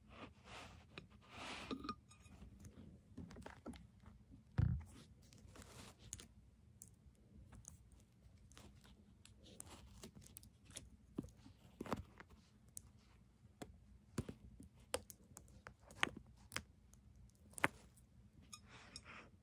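A glass jar and a ceramic plate being handled on a carpeted floor: scattered light clicks and taps, with one heavier thump about four and a half seconds in.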